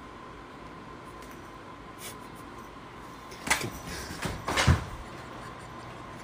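A few sharp knocks and thumps in quick succession, starting about three and a half seconds in, the last one the loudest and deepest, over a faint steady high tone.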